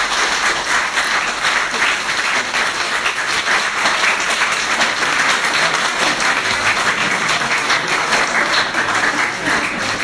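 Loud audience applause: many people clapping together in a dense, even patter.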